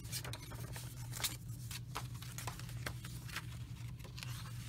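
Paper rustling and light crinkling in short, scattered strokes as folded paper inserts in a handmade junk journal are opened out and pages handled, over a steady low hum.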